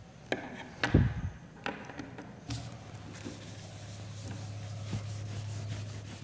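A few knocks against a classroom whiteboard, the loudest a thump about a second in, then a whiteboard being wiped clean with a soft rubbing sound. A steady low hum comes in about two and a half seconds in.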